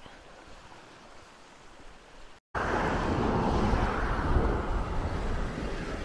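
A quiet stretch of outdoor background, then a sudden cut to a louder, steady wind rumble on the microphone over the wash of open sea.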